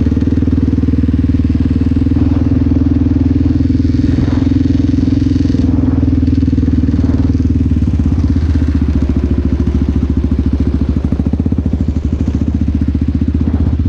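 Yamaha Raptor 700R's single-cylinder four-stroke engine running steadily under way, then easing off about eight seconds in, its revs dropping so that single firing pulses come through as the quad slows.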